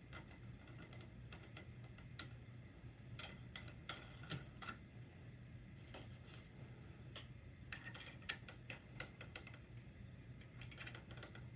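Faint, scattered clicks and light taps as a thin cut-off disc and its flange are handled and fitted by hand onto an angle grinder's spindle, coming in loose clusters.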